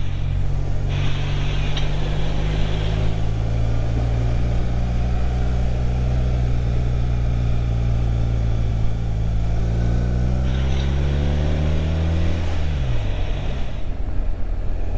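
Motorcycle engine running at a steady cruise under wind and road noise, its note sagging slowly, then dipping sharply and picking up again near the end.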